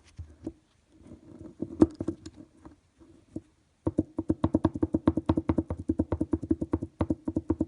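Front anti-roll bar drop link knocking: a few loose knocks, then from about four seconds in a fast, even metallic rattle of about eight knocks a second. The clatter is the sign of play in the drop link, the cause of the front-axle rattle over bumps.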